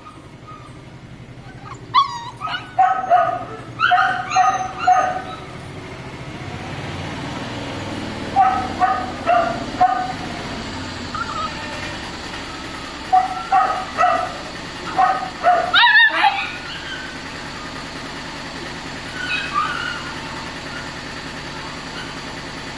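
Mastiff puppies yipping and barking in short, high-pitched calls that come in clusters: a run about two to five seconds in, another around eight to ten seconds, and a third around thirteen to sixteen seconds, over a steady background hum.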